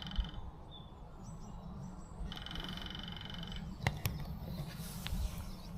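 Lesser spotted woodpecker drumming: a rapid, even roll of strikes about a second and a half long, heard as one roll ending just after the start and a second one about two and a half seconds in.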